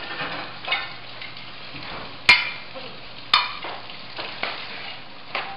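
Serving utensils and plates clinking and clattering on a kitchen counter: about five sharp knocks over a steady hiss, the two loudest, near the middle, ringing briefly.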